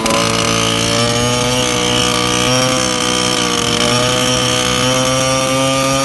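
Peugeot 103 moped's small two-stroke engine running at steady revs. It makes a buzzing drone whose pitch rises and falls only slightly.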